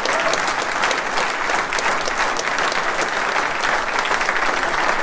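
Audience applauding steadily: dense, continuous hand-clapping from a room full of people.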